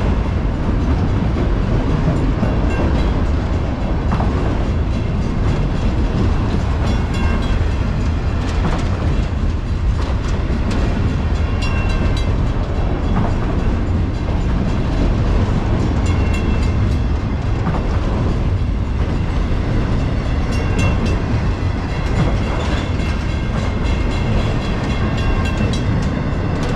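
Autorack freight cars rolling slowly past close by: a steady rumble of steel wheels on the rails, with scattered clicks and short high-pitched squeals.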